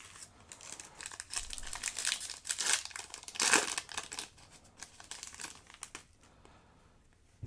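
Foil Yu-Gi-Oh! booster pack wrapper crinkling as it is torn open: a dense run of crackles, loudest about three and a half seconds in, dying away after about six seconds.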